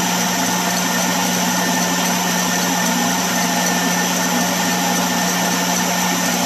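Stand mixer running steadily at high speed, its wire whisk beating egg whites in a stainless steel bowl for Italian meringue: a constant motor hum.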